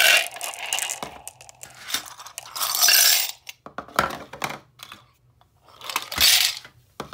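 Glass marbles, metal crown bottle caps and plastic bottle caps clattering and clinking into a plastic mixing bowl as each bowlful is tipped in: three bursts of rattling about three seconds apart.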